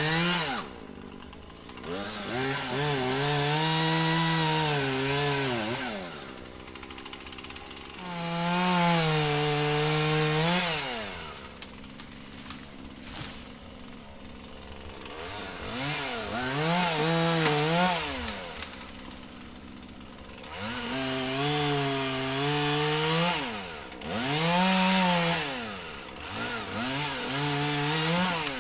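Chainsaw cutting wood, its engine revving up and falling back about five times.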